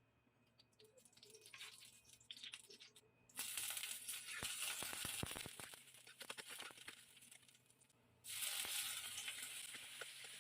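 Food frying in hot oil in a pan. The sizzle starts suddenly about three seconds in, crackles, dies down, then flares up suddenly again near the end.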